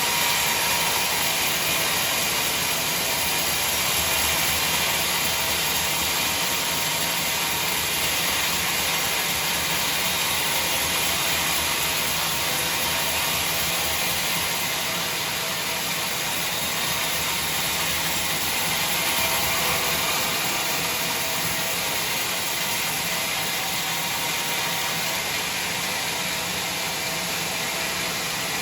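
Sawmill machinery running steadily, with a dense, even noise strongest in the upper range and a level that dips slightly about halfway through.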